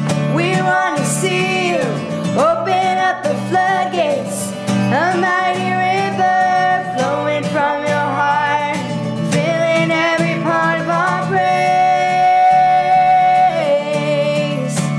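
A woman singing a slow worship song with wordless vocal runs and one long held note near the end, over acoustic guitar accompaniment.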